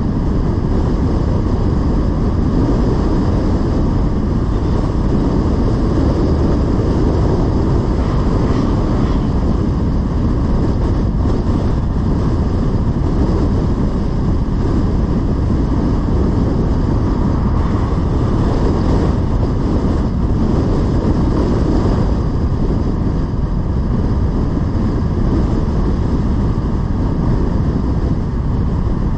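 Steady road noise of a car driving along: a constant low rumble with wind noise, unchanging throughout.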